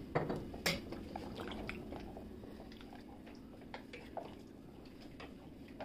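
Wooden spatula stirring a thin curry in an aluminium pressure cooker: soft squelching with scattered light knocks against the pot, the two sharpest in the first second.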